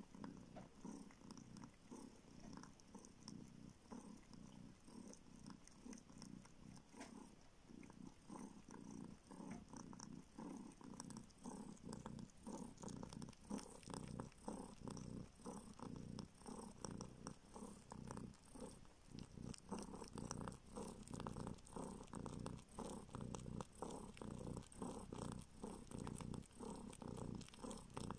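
Kitten purring steadily while suckling on a finger, with soft, regular sucking clicks about two or three a second that grow louder about halfway through.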